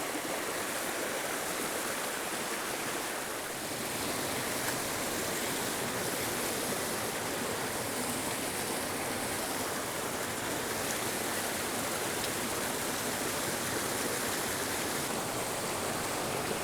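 Mountain creek water rushing steadily over its pools and rocks, the stream running high and swollen after recent rain.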